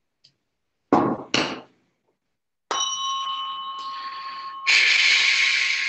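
Tuning forks being handled and struck: two dull knocks, then about three seconds in a fork rings with a clear, steady, bell-like tone. About five seconds in a second, louder strike adds a brighter ring that slowly fades.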